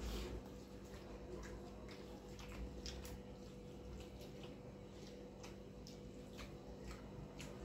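Eating by hand: soft, irregular wet clicks and squishes as fingers mix rice and curry on a steel plate and the mouth chews, about one or two clicks a second, over a faint steady hum.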